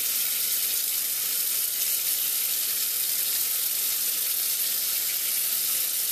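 Kitchen faucet running steadily, a constant hiss of its stream splashing over hands and a soapy plush toy into a stainless-steel sink.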